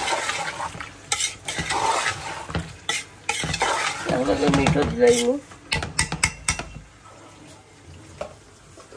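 A spoon stirring and scraping in a pot of food sizzling in oil, with repeated sharp clinks against the pot. A brief voice is heard about four seconds in, and the stirring quiets for the last two seconds.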